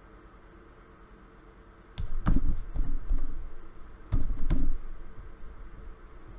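Two short bursts of knocking, tapping and handling noise, the first about two seconds in and the second about four seconds in, over a faint steady hum.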